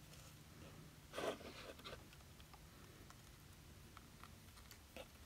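Quiet hand handling of binding thread and paper while a knot is tied: one brief rustle about a second in and a few faint ticks later, over a low steady hum.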